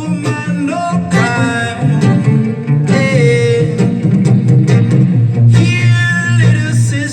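Music playing loudly through a Laney AH112 powered speaker: a heavy bass line under a gliding melody, which the operator judges to be free of clipping.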